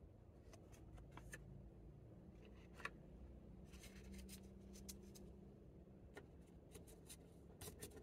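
Faint rustling and light clicks of paper candy wrappers and foil-wrapped chewing candy sticks being handled and set down on a table, with one sharper click just under three seconds in.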